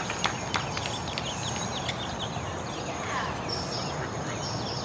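Many short bird chirps and calls over a steady high insect hum and a low background murmur, with a few light clicks in the first half-second.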